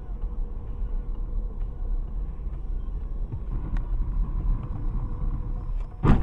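Road and engine rumble of a car driving, picked up by a dash cam inside the car: a steady low noise. Near the end, a sharp loud knock.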